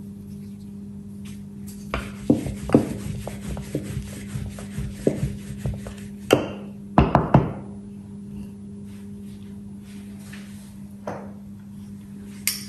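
Wooden rolling pin rolling out a ball of paratha dough on a silicone mat: a run of knocks and rubbing from about two seconds in, with the loudest knocks around six and seven seconds, then a single knock shortly before the end as the pin is set down.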